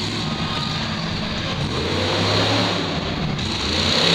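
Monster truck engine running loud as the truck drives across the dirt arena, revving up with rising pitch near the end.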